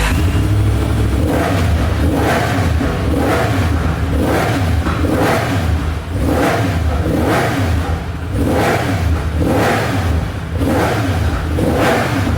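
Yamaha MT-10SP's crossplane inline-four engine revved repeatedly through its exhaust, about one rising-and-falling rev a second over a steady low drone.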